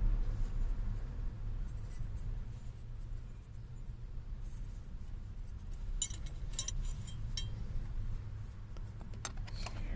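Light clicks and taps of steering-column parts being handled and fitted by hand, clustered in the second half, over a low steady hum.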